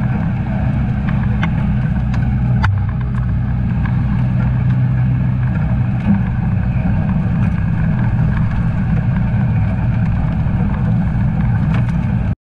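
Isuzu NPS 4x4 truck's diesel engine droning steadily on the move, with a few knocks and rattles from the truck over the rough track, the sharpest a little under three seconds in.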